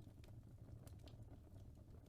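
Faint fireplace crackling: irregular sharp pops and clicks, a few a second, over a steady low rumble.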